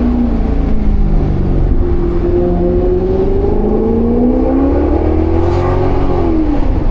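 Maserati GranCabrio's Ferrari-derived 4.7-litre V8 accelerating, its pitch climbing slowly for about four seconds as the revs build through a gear, then falling near the end as the throttle is lifted, over a steady low road rumble.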